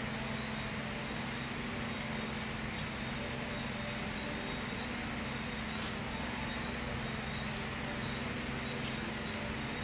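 A steady low hum over constant background noise, unchanged throughout, with a few faint light clicks in the second half.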